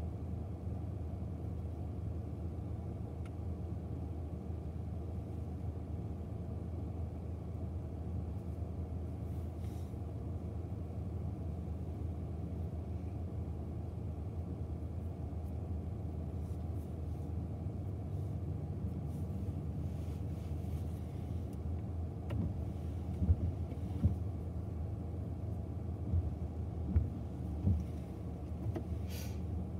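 Steady low rumble heard from inside a closed car while an intermodal freight train of trailers rolls past at a distance. A few soft knocks come about three quarters of the way in.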